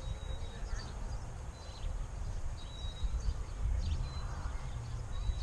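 Wind buffeting the microphone in an uneven low rumble, with a few faint bird chirps.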